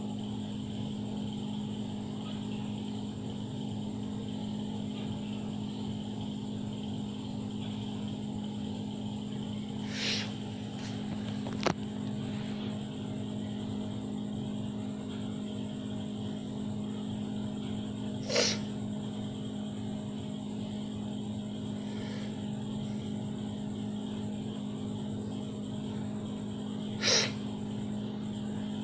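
A steady electrical hum, with three short breathy sounds about eight seconds apart and a single click between the first two.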